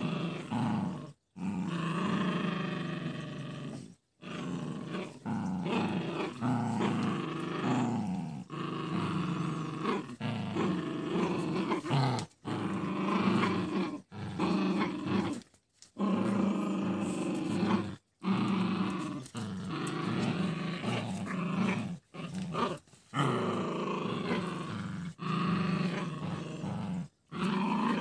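Toy and miniature poodles growling in play during a rope tug-of-war: long stretches of low, wavering growls broken by several brief silences.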